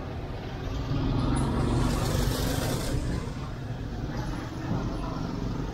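Street traffic: a steady low rumble of motor vehicles, with one passing close and loudest between about one and three seconds in.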